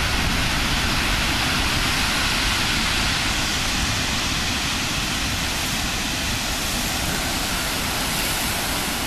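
Heavy typhoon surf breaking on a shingle beach, a steady rushing noise with no let-up.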